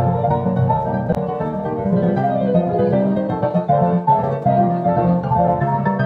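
Piano music playing, a quick run of notes over a steady lower accompaniment.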